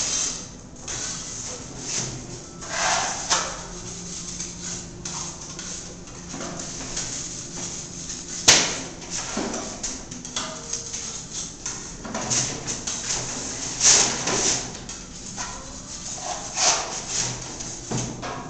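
Trowel spreading and scraping texture compound in quick, irregular swipes, with a sharp knock about eight and a half seconds in.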